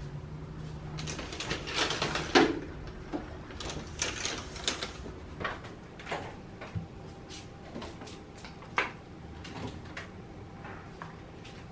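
Refrigerator door opened and food and bottles taken out and handled: a string of short clicks, knocks and rustles. A longer sliding rustle comes in the first few seconds.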